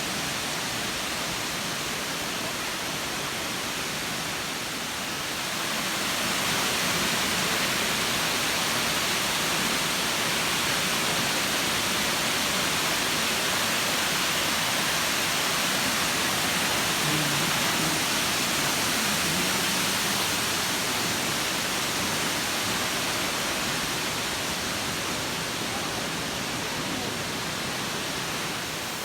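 Waterfall: the steady rush of falling water, growing louder about six seconds in and easing back a little in the last third.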